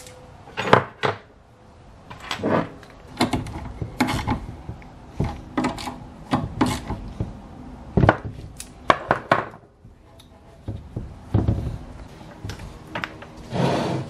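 Irregular knocks, clicks and rubbing as a metal bracket, an idle control valve and a socket driver are handled and fitted on a plastic intake manifold.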